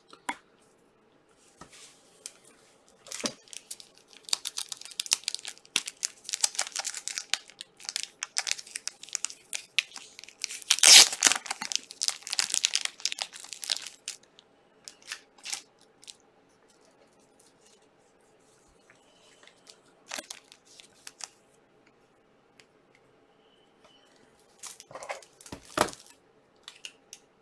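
Trading-card pack wrappers from 2020 Panini Select Euro soccer boxes being torn open and crinkled, with a long stretch of ripping and crackling that is loudest about eleven seconds in. Cards and wrappers are then handled, with a few light taps and another short crinkle near the end.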